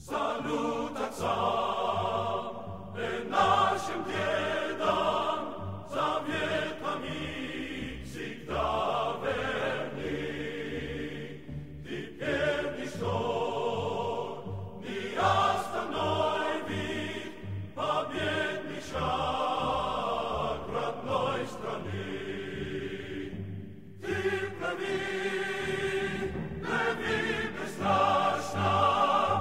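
Background music: a choir singing sustained chords in phrases of a few seconds over a low repeating pulse.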